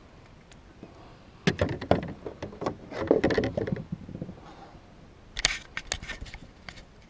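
Handling noise: scattered knocks and rustles as the bass and gear are moved about in a plastic kayak, then a quick cluster of sharp clicks as a hand fumbles at the camera.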